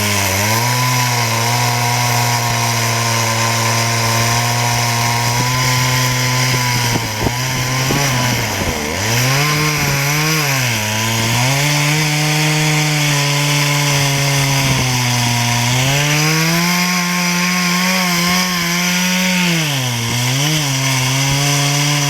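Two-stroke chainsaw running at high revs while cutting pine wood, its pitch dropping and recovering several times as the chain bogs down in the cut, mostly around the middle and again near the end.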